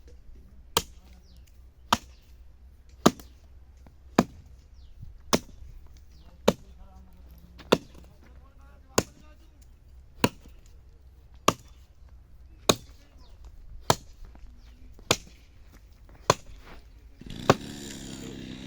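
An axe chopping into a neem tree trunk in steady, evenly spaced blows, a little over one a second. Near the end a steady engine-like drone comes in under the chopping.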